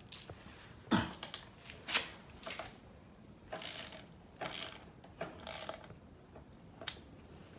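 Ratchet of a click-type torque wrench set to 12 Nm, clicking in short runs about once a second as a 5 mm hex bit tightens the Hollowtech crank arm bolts. The set torque is not yet reached, so the wrench's release click has not come.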